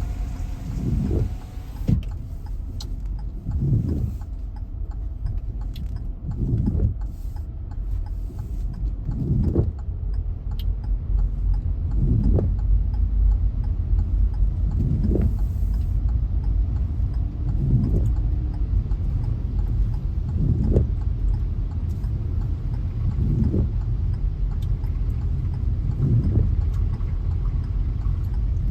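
Car running with a steady low rumble, heard from inside the cabin, with a regular swelling sound about every three seconds.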